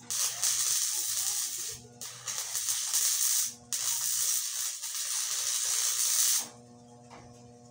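Arc welding on a loader bucket's tooth: the arc crackles and hisses in three runs of a few seconds each, with short breaks between them. A quieter steady hum follows near the end.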